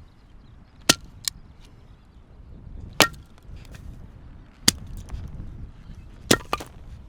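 Four sharp strikes about a second and a half to two seconds apart, two of them followed by a lighter second knock.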